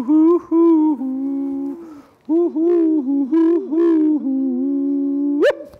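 Two men's voices hooting in close harmony, a string of held and swooping notes with a short break about two seconds in, ending in a sharp upward whoop.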